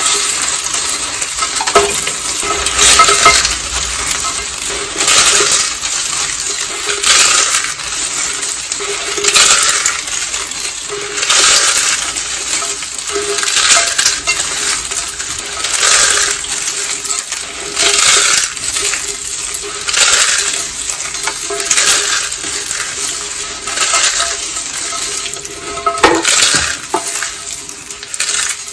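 Pink dry soap roses and soap curls being crushed, a crisp crunching and crackling repeated about once a second.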